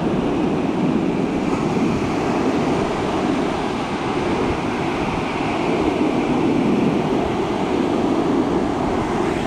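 Ocean surf breaking and washing up the beach, a steady rushing noise, with wind rumbling on the microphone.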